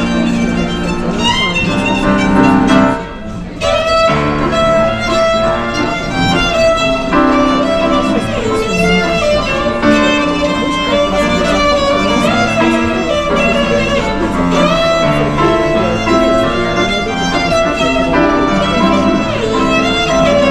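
Instrumental music with a violin carrying the melody over accompaniment, briefly dropping away about three seconds in.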